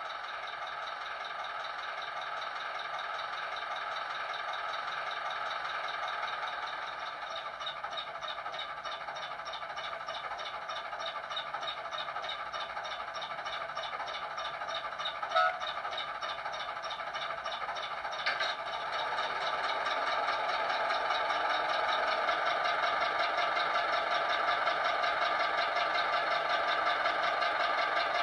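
Digital sound decoder in an O gauge Ruston 48DS diesel shunter model, playing the engine sound through the model's small speaker with little bass: a steady rhythmic diesel beat. There is a brief tone about halfway and a click a little later, then the engine note grows louder and stays up as the loco works harder.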